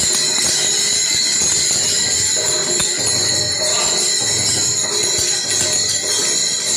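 Many small hand cymbals (taal) clashing and ringing in a fast, steady rhythm, over voices singing a devotional bhajan.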